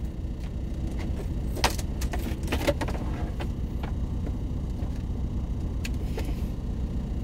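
Clicks, knocks and rattles of a small fridge being opened and things being moved about in it, mostly in the first half and again briefly near the end, over a steady low rumble in a truck cab.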